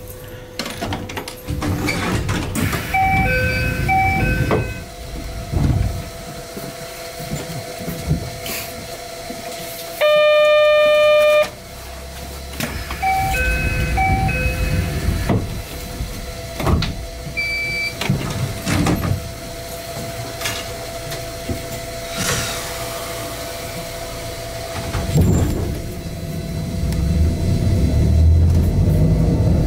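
Stopped 260 series narrow-gauge train at a station: a steady electrical hum, with two short runs of electronic beeps and a loud electronic tone lasting about a second and a half near the middle. Near the end the low rumble of the motors and wheels builds as the train pulls away.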